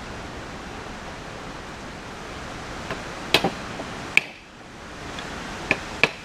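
Several sharp clicks from parts of a disassembled automotive AC compressor being handled, grouped in the second half, over a steady background hiss.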